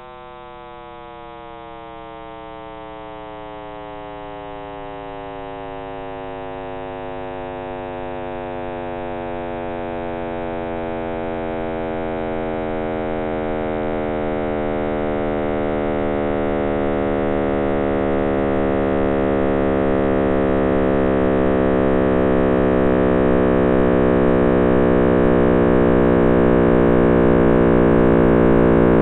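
Synthesized 'Big Bang sound', a sonification of the cosmic microwave background radiation: a drone of many evenly spaced tones slowly sliding downward in pitch and growing steadily louder, over a low buzzing hiss.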